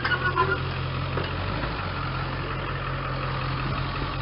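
Vehicle engine idling steadily, with a few short clicks and knocks in the first half second.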